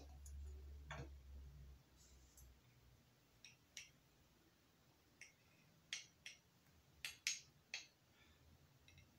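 Faint, irregular light clicks and taps of glassware being handled and set down on a glass plate while gluing glass pieces together, about a dozen in all, with the sharpest near the start and about seven seconds in.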